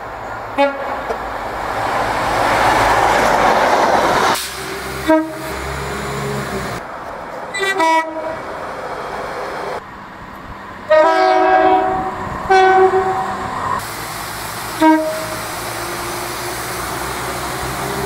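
Several short two-tone train horn blasts from different passing and approaching trains, each a few held notes sounded together, some single toots and some in quick pairs. Before the first blast, a passing train runs with a steady rumble.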